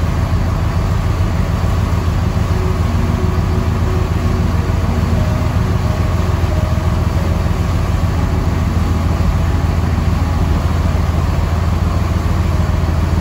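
Sport-fishing boat's engines running steadily under way: a loud, low, even drone over the rush of the churning wake.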